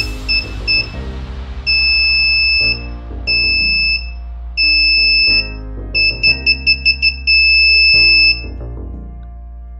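Small electronic buzzer on a hand-built test circuit beeping in one high tone as the test probes make contact: three short beeps, then three long beeps of about a second each, a quick run of about seven short beeps, and a final longer beep. Background music plays underneath.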